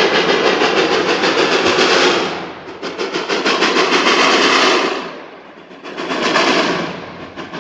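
Reading & Northern No. 425, a 4-6-2 Pacific steam locomotive, working hard with rapid, even exhaust chuffs. The sound fades briefly twice, then comes back strong.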